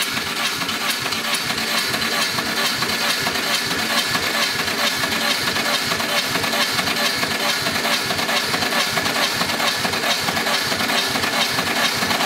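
Starter motor cranking a VAZ-21213 Niva's carburetted four-cylinder engine without it firing, a steady rhythmic chugging whirr, with the throttle propped open for a compression test on the second cylinder. The gauge climbs slowly, which the mechanic remarks on.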